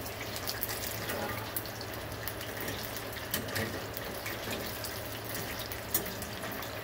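Hot oil sizzling and bubbling steadily in a countertop electric deep fryer around battered chicken wings, with a thick scatter of small crackles and pops.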